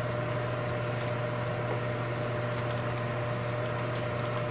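Wooden spoon stirring chicken curry in a wide pan, with soft scraping and sizzling, over the steady hum of a range hood fan.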